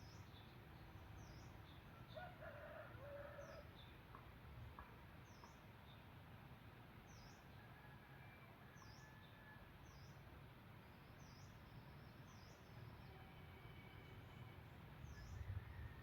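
Faint outdoor bird sounds. A small bird repeats a short, high chirp about once a second, and a brief distant call that may be a red junglefowl's crow comes about two seconds in, over a low background rumble.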